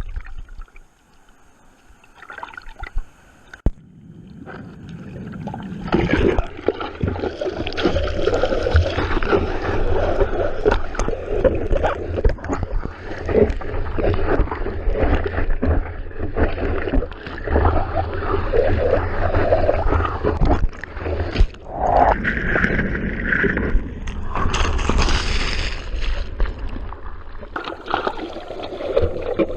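Seawater sloshing and gurgling around a surfer's action camera, with a low rumble of surf. The sound is fainter for the first few seconds, then rises about five seconds in into a loud, continuous wash with crackling splashes.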